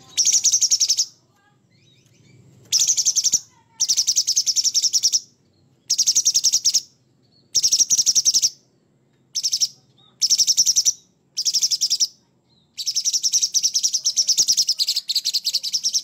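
Caged leafbird (cucak cungkok) singing a harsh, coarse song in repeated phrases of fast, rattling notes. The phrases last about a second each with short pauses between them, and a longer run fills the last three seconds.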